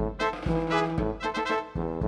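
Background music led by brass instruments playing a melody of short notes.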